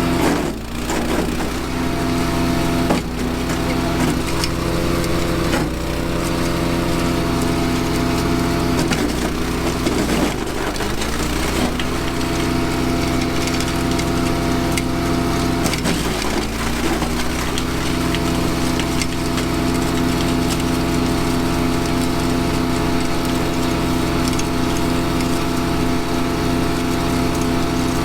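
Honda-engined self-propelled branch chipper running at speed, its engine bogging down briefly several times, longest about ten seconds in and again around sixteen seconds, as branches are fed in and chipped, with wood cracking and splintering.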